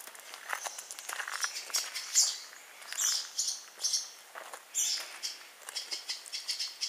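Footsteps crunching on gravel, an uneven run of scrunches about every half second, with faint bird chirps in the background.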